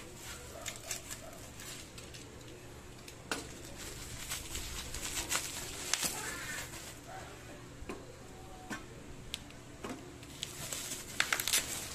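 Bubble wrap being cut with a utility knife and pulled off aerosol spray cans: crinkling plastic with scattered sharp crackles and pops. Near the end comes a quick cluster of sharp knocks as the metal cans are set down on a wooden slatted bench.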